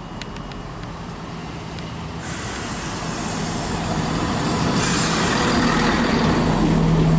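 CrossCountry Class 170 Turbostar diesel multiple unit running into the platform. A low, steady engine hum and a rushing rumble of the train grow steadily louder.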